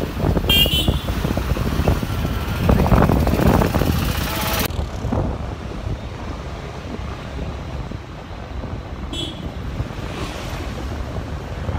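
Road traffic heard from a moving scooter: wind rush on the microphone over engine and traffic noise, with a short horn toot about half a second in. About five seconds in it gives way to quieter, steadier street traffic with scooters passing.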